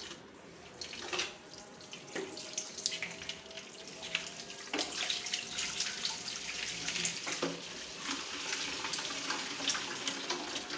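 Water splashing into a bathroom washbasin as it is scrubbed and rinsed out, with a few knocks of items against the basin. The water grows louder about four seconds in.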